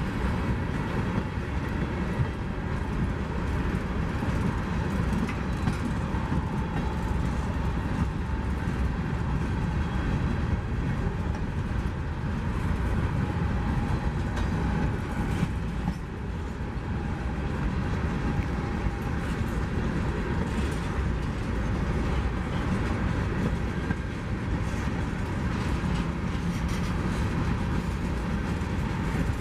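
CSX freight train's covered hopper cars rolling past close by: a steady, low rolling noise of steel wheels on rail, with many small clicks and clanks throughout.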